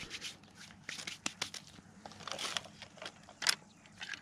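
Handling noise from fishing tackle being picked up: scattered light clicks and rustles, with one sharp click about three and a half seconds in.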